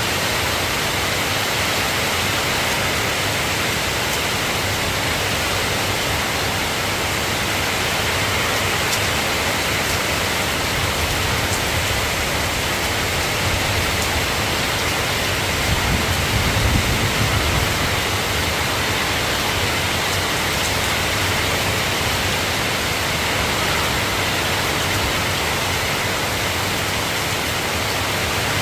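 Steady soft rain falling, an even hiss. About sixteen seconds in, a low rumble swells up for a couple of seconds.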